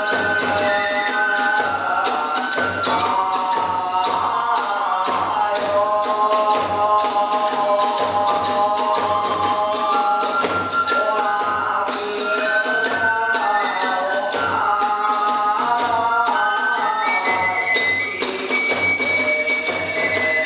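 Hiroshima kagura music: a drum keeping a steady beat, clashing hand cymbals, and a bamboo flute playing a winding melody that climbs to a held high note near the end.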